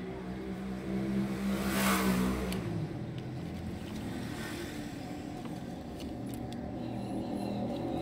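A motor vehicle's engine running, with a rush of noise that swells and fades about two seconds in.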